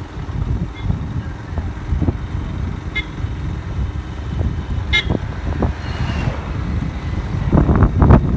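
Wind buffeting the microphone of a moving motorcycle, over a low rumble. A short vehicle horn toot sounds about three seconds in and another, louder one about five seconds in; the buffeting grows louder near the end.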